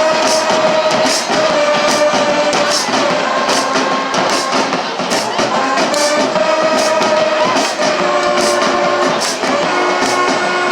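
A band plays at a football game: long held horn notes over a steady beat of cymbal crashes, about two a second, with crowd noise underneath.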